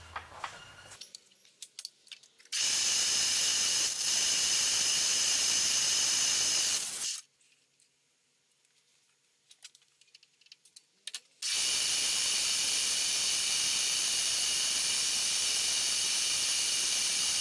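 Compressed-air blow gun hissing in two long, steady blasts, clearing aluminium chips off the drilled plate, with a few light clicks in the quiet gap between them.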